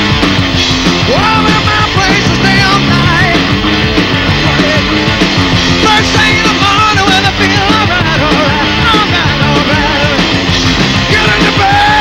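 Hard rock played loud on distorted electric guitar and drums, with a lead line of bending, wavering notes over the band.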